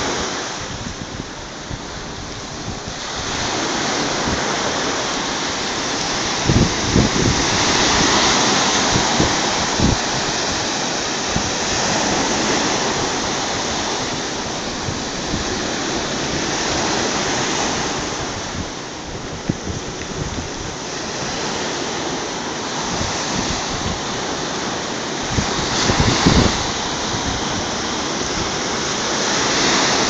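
Black Sea surf breaking on a sandy beach: a steady rush of foaming waves that swells and eases every several seconds. A few low thumps of wind hit the microphone.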